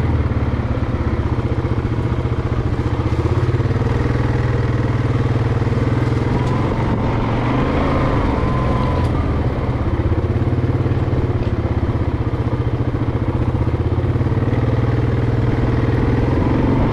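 Vehicle engine running steadily while driving along, with no revving.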